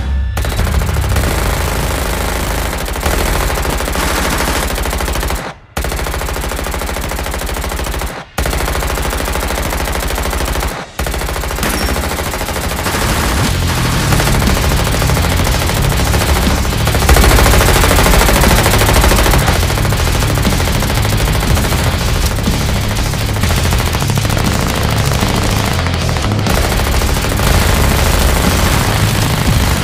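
Sound-effect automatic gunfire: machine guns firing in long continuous streams, broken by three short gaps about five, eight and eleven seconds in.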